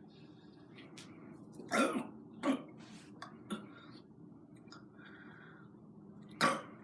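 A boy burping from a gulp of fizzy Coke: a loud burp about two seconds in, a smaller one just after, and another loud one near the end.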